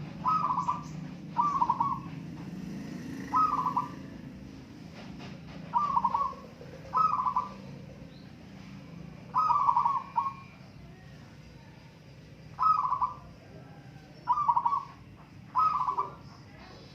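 Zebra doves (perkutut) cooing: about nine short, rolling coos near the same pitch, spaced one to two and a half seconds apart, over a faint low hum.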